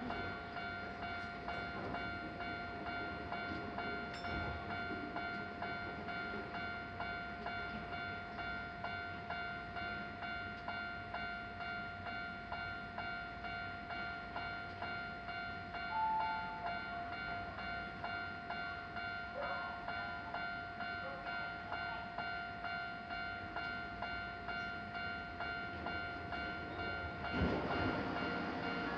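Japanese level-crossing warning bell ringing: a steady electronic ding repeated evenly. Near the end the rumble of an approaching electric train rises underneath.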